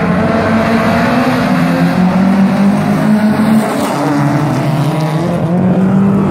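Several folk-race cars' engines revving together as the pack accelerates away down a gravel track. There are a few overlapping engine notes that hold and then shift in pitch partway through.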